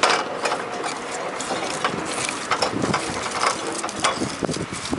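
Fairmont speeder rolling along the track, its steel wheels and frame rattling with many irregular sharp clicks and clatters.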